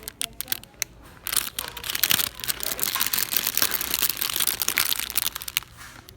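Crinkly packaging being handled: a dense crackling rustle, lighter for about the first second and then busy and continuous.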